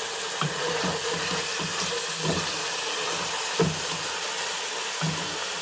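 Minced beef sizzling steadily in an enamelled cast-iron pot, with a wooden spoon scraping through it every second or so as it is stirred.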